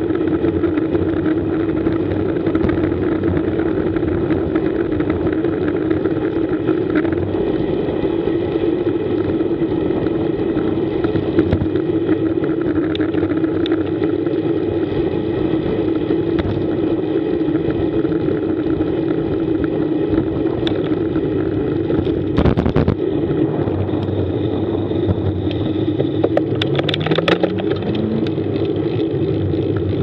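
Steady wind and road rumble on an action camera mounted on a moving bicycle, with passing motor traffic. A few sharp knocks come in the second half, and a short rising engine tone is heard near the end.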